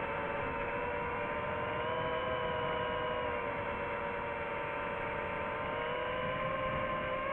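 FPV quadcopter's motors and propellers whining at a steady throttle, a cluster of close tones that drift slightly up and down in pitch over a rushing hiss.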